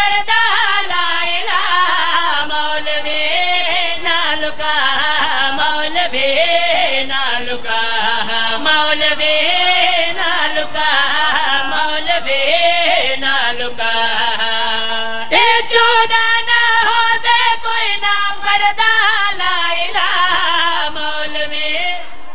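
A man chanting a qasida, a devotional praise poem, into a microphone in a high, strained voice, holding long wavering notes that slide down and climb again, with a fresh loud phrase about fifteen seconds in.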